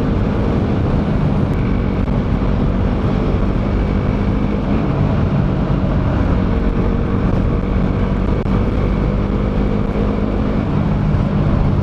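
KTM Duke 200's single-cylinder engine running steadily under way, its note sagging slightly a few seconds in and climbing again near the end, under a heavy rush of wind.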